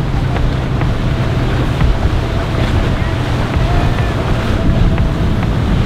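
Large flybridge motor yacht's engines running at cruising speed, a steady low drone, mixed with the rush of its bow wave and wake through choppy water and wind on the microphone.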